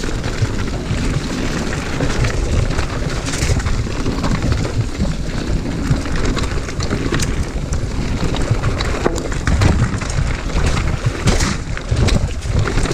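Wind buffeting a chest-mounted action camera's microphone as a mountain bike rolls fast over gravel singletrack, with a steady low rumble and scattered clicks and rattles from the tyres and bike.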